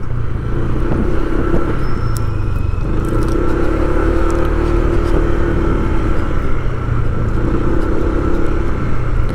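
Motor vehicle running steadily on a street, with a constant low engine and road rumble and a humming tone that fades in and out.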